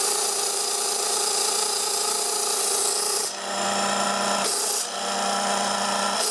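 Belt-driven Sanden air-conditioning compressor, turned by a VFD-fed electric motor, running steadily with a whine and a hiss of air while it is worked as a vacuum pump. About three seconds in the high hiss drops away and a lower hum comes in.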